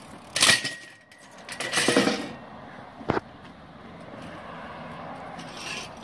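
BMX bike hitting a metal flat rail: a sharp metallic clang about half a second in that keeps ringing for over a second, a rough scraping clatter around two seconds in, and a single knock about three seconds in.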